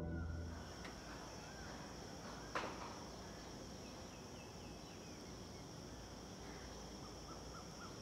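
Outdoor insect chorus, a steady high-pitched drone, with scattered small bird chirps and one sharp click about two and a half seconds in. A low music note fades out at the very start.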